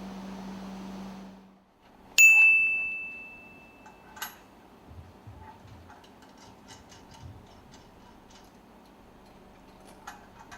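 A steady hum fades out. A single loud, clear ding then rings out and dies away over about a second and a half, followed by a click and faint scattered ticks.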